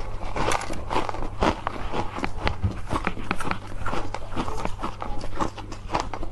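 Close-miked crunching of ice as it is bitten and chewed: a quick, irregular run of crisp cracks.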